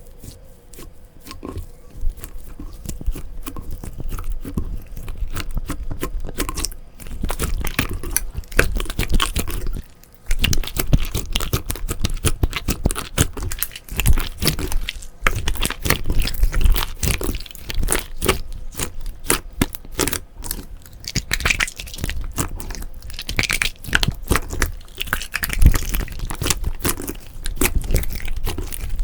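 Slime being squeezed, stretched and pressed by hand, giving a dense run of sticky clicks and crackles, with a brief pause about ten seconds in.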